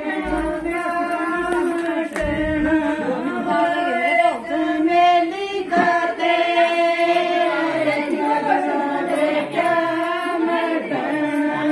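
Several women singing a Haryanvi jakdi folk song together in long, held melodic lines.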